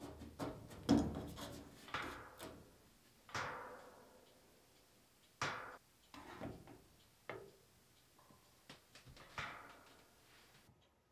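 Hands handling things around the stacked washer and dryer: a string of separate knocks and clunks, the loudest about a second in, with a plastic spray bottle being set into a plastic hanger stuck to the dryer's side panel.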